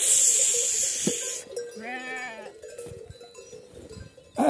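A grazing flock of sheep and goats bleating: one wavering bleat about two seconds in and a short, sharp call near the end. A loud rush of noise fills the first second and a half.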